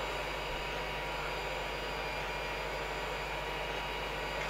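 Creality CR-10S 3D printer running mid-print: a steady whirring hum, mostly its cooling fans, with a few faint constant high tones.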